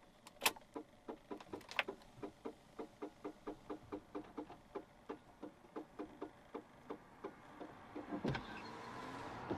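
Rapid, even mechanical ticking or pulsing, about three to four beats a second, after two sharp clicks at the start. It gives way near the end to a brief louder rush.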